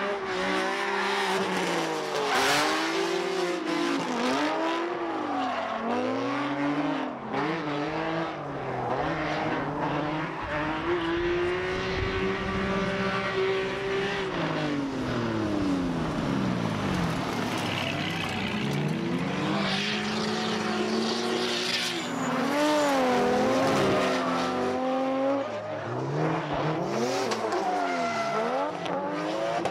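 Drift cars' engines revving up and down again and again as they slide, with tires squealing.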